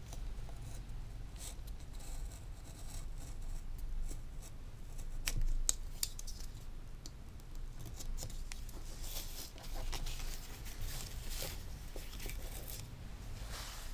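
Snap-off utility knife slicing through thin calfskin leather in short scraping strokes, along with the cut leather pieces being handled.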